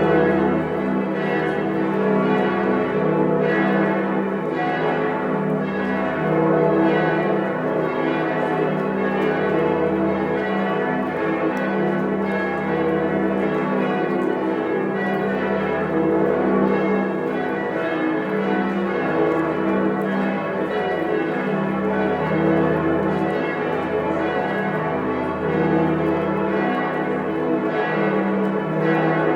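Many large church bells ringing together in a full peal, their strokes overlapping into one continuous sound. Beneath them a deep hum swells and fades every few seconds.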